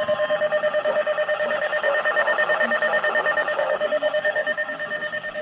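Electronic emergency alert tone beeping rapidly and steadily, about eight pulses a second.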